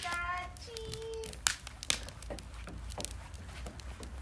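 Wood fire crackling in a metal fire pit, with scattered sharp pops, the loudest about a second and a half in. In the first second, a short high-pitched call slides slightly down, followed by a lower held note.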